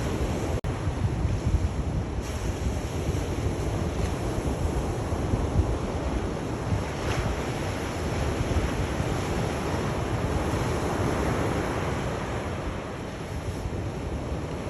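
Sea waves washing ashore in a continuous surf with slow swells, and a low rumble of wind on the microphone. Just after the start the sound drops out for a split second.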